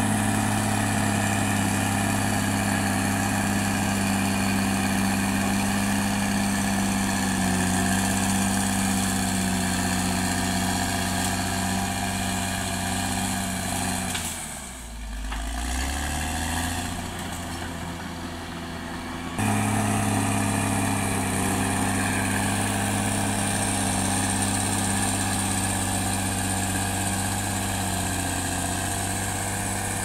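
CAT D6R XL bulldozer's diesel engine running steadily with a low hum. About halfway through it turns quieter and thinner for several seconds, then cuts back in suddenly at full strength.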